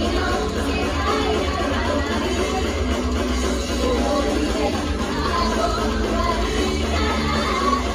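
Idol group song performed live: women singing into handheld microphones over loud, bass-heavy rock-style music, played through the venue's PA without a break.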